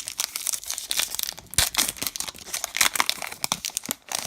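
A baseball card pack wrapper being torn open and crinkled by hand: an irregular run of crackles and rustles.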